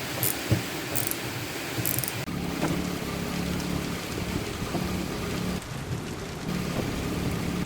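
Windscreen wipers of a VAZ-2110 running over wet glass in the rain, with rain falling on the car throughout. A few regular sweeping strokes come early, then a steady low motor hum.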